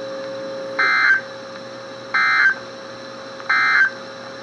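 NOAA Weather Radio SAME end-of-message data signal: three short bursts of shrill warbling digital tones, each about half a second long and about a second and a half apart, over a faint steady tone. The bursts mark the end of the severe thunderstorm warning broadcast.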